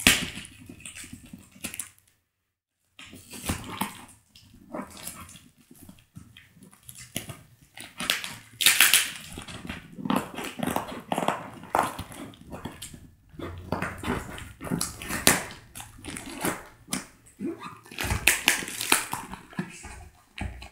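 Plastic-wrapped parcel being cut open with scissors: plastic and paper crinkling and tearing in irregular bursts, with snips and clicks, and a few louder rips.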